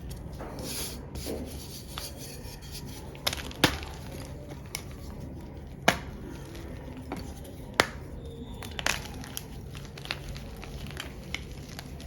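A block of black-dyed gym chalk being crushed by hand: crumbling and crackling, with three sharp snaps about two seconds apart as pieces break off.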